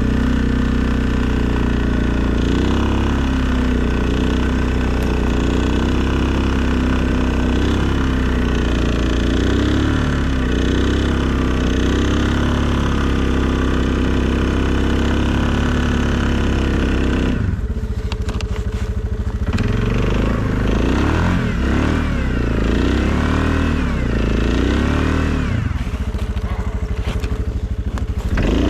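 Suzuki KingQuad ATV's single-cylinder engine running steadily under load while pushing a snow plow, its revs wavering slightly. About two-thirds of the way through it drops back, then revs up and down several times.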